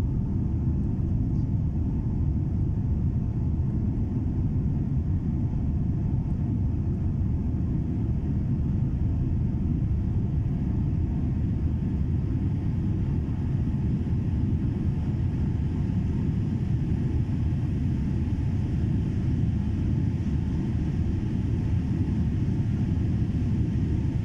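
Boeing 787 Dreamliner jet airliner during take-off: a steady, unbroken low rumble of engines and airflow.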